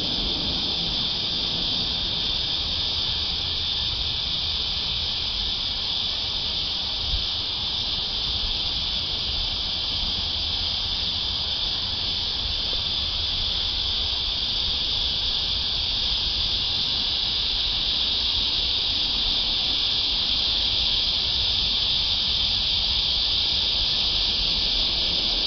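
Cicadas droning in a steady, unbroken high-pitched chorus, over a faint low rumble.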